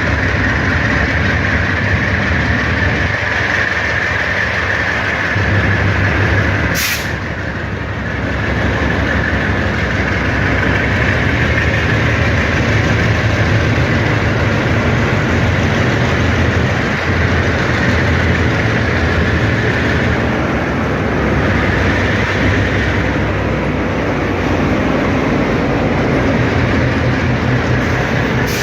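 Train rolling past steadily, the noise of the wheels on the rails running continuously with a steady high band in it. One sharp click about seven seconds in.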